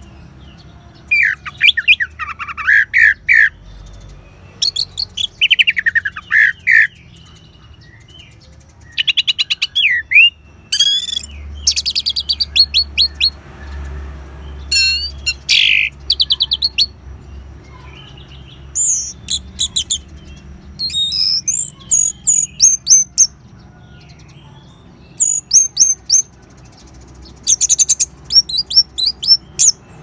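Orange-headed thrush singing its loud 'ngeban' song: a run of varied phrases of rapid, sharp notes and whistles, each a second or so long, broken by short pauses.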